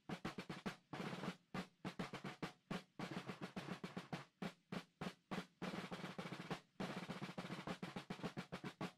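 Percussion music made of fast snare drum rolls and rapid drum hits, broken by short pauses.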